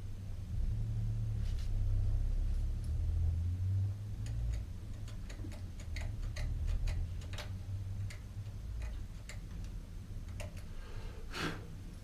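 A run of sharp, separate clicks, about two a second, from hand work on a bicycle's rear lamp and wheel, followed by a short scrape near the end.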